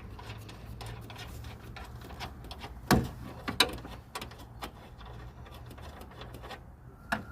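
Irregular clicks and taps of hand tools working on a car's third brake light, with two sharper knocks about three seconds in, over a steady low hum.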